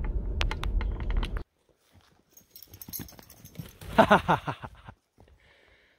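A dog gives a short burst of whining yelps about four seconds in, wavering and sliding in pitch. Before that, a rumbling noise with sharp clicks cuts off suddenly after about a second and a half.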